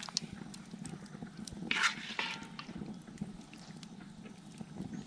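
Light scattered clicks and clinks of a serving spoon against the camp oven and bowls as curry is dished out, with one louder short higher-pitched sound about two seconds in.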